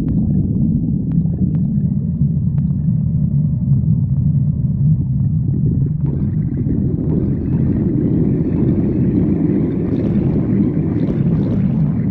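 A hungry person's stomach growling: one long, continuous low rumble that turns fuller and brighter from about six seconds in.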